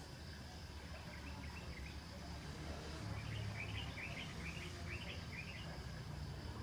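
A bird chirping in short, quick notes: a few faint ones about a second in, then a louder run of about three a second in the second half, over a steady low rumble.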